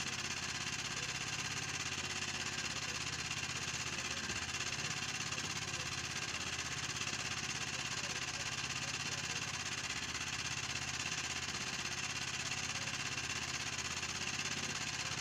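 A small engine running steadily: an even, unchanging hum under a broad hiss.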